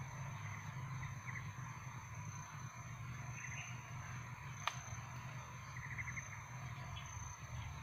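Outdoor riverside ambience: a steady high insect drone under a low steady hum, with a few short clusters of chirps and one sharp click a little past halfway.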